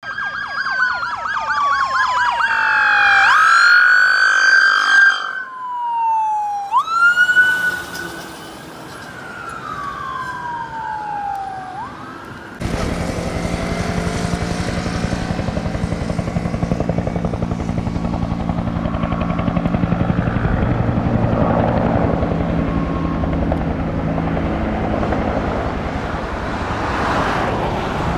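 Fire apparatus siren sweeping down in pitch and jumping sharply back up, several times over. About halfway through it cuts to a steady low rumble with a steady hum.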